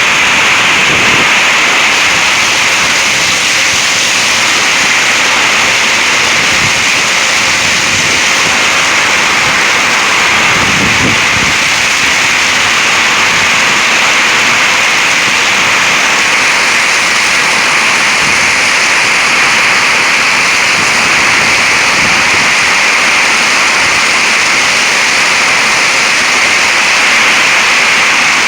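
Heavy thunderstorm downpour: a loud, steady hiss of rain.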